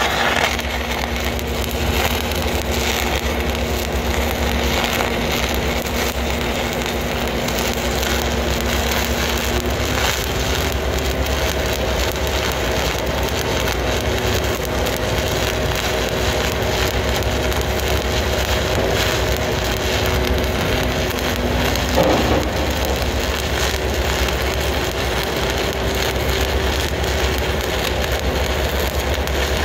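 Stick (SMAW) welding arc crackling and spitting steadily as an electrode burns along a joint on galvanized structural steel, run on a Miller CST 280 inverter at about 150 amps. One slightly louder pop comes about 22 seconds in.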